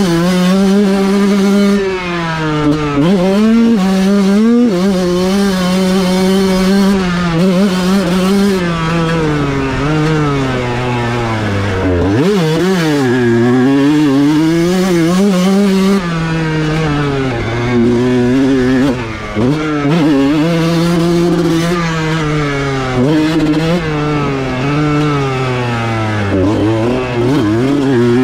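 Kawasaki KX125 single-cylinder two-stroke motocross engine ridden hard, its revs climbing and falling again and again as the throttle is opened and closed.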